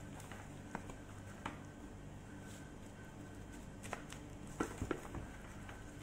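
Gloved hands rubbing and patting spice rub into raw chicken on a metal baking tray: soft squishing with scattered light taps and clicks, the loudest few a little past halfway, over a steady low hum.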